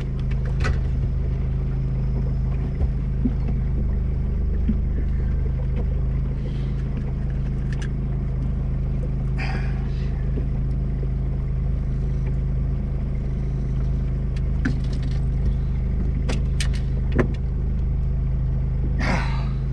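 Boat motor running steadily at trolling speed: a constant low hum, with a few scattered clicks and knocks on deck.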